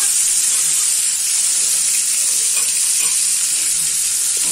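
Turmeric-rubbed fish pieces sizzling steadily as they fry in very hot oil in a kadai on high heat, with a few light scrapes and taps of a metal spatula moving them.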